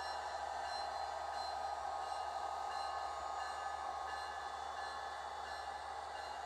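Rapido model Amtrak F40PH train running on a model railroad: a steady, even hum of locomotive sound with faint high tones repeating about twice a second.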